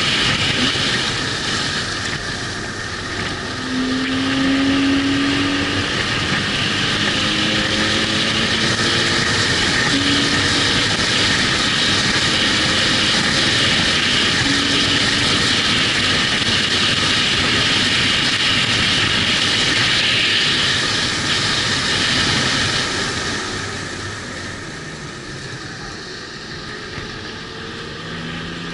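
Car being driven hard on a race circuit, heard from an onboard camera: engine note and wind and road noise, with the engine pitch rising several times under acceleration. About 23 seconds in it gets quieter, and a rising engine note comes back near the end.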